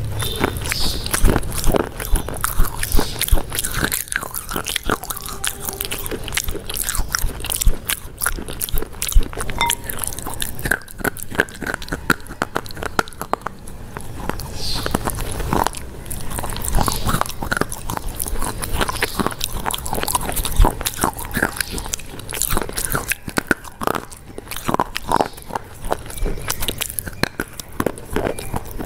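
Close-miked biting and chewing of a crunchy food: dense crackling crunches and mouth clicks, with louder sharp bites standing out here and there.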